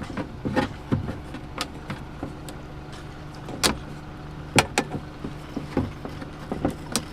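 Hand wire cutters snipping through wires: about eight sharp, irregularly spaced clicks. Underneath is the steady low hum of an idling car engine.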